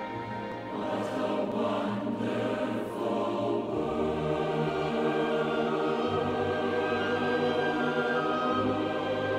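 Choir singing with long-held notes as background music, growing a little louder about a second in.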